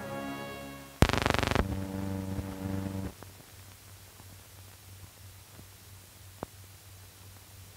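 The closing chord of an intro music sting, struck loud about a second in and held for about two seconds before it stops. It is followed by the steady low hum of an old film soundtrack, with a few faint clicks and pops.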